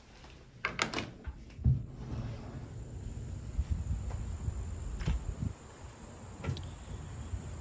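A wooden front door's latch clicks as the door is opened, followed by a thud; then a steady high drone of insects sets in, with a few light knocks.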